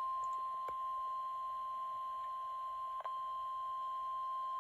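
Emergency alert warning tone announcing a severe thunderstorm warning: a single steady high-pitched tone, with a brief dip about three seconds in.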